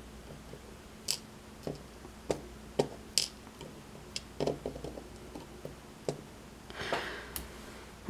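Scattered small clicks and ticks of metal tweezers picking up lock pins and springs from a plastic pin tray, with a brief rustle near the end.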